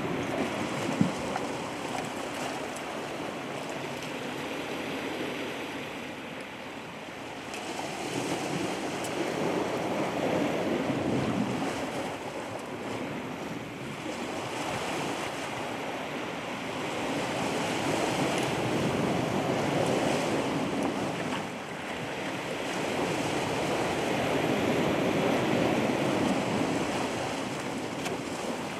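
Ocean waves washing onto the shore, swelling and falling back in slow surges every several seconds, with wind buffeting the microphone. A single short knock about a second in.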